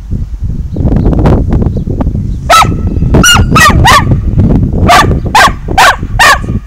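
A dog barking in two quick runs of four short barks, starting a couple of seconds in, over a steady low rumble.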